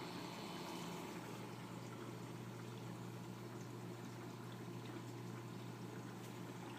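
Reef aquarium running: water steadily trickling and splashing, with a steady low hum from its pumps underneath.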